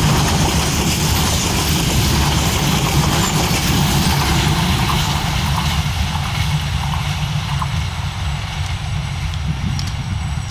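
Passenger train running along the adjacent track: a steady rumble that slowly fades as the train moves away.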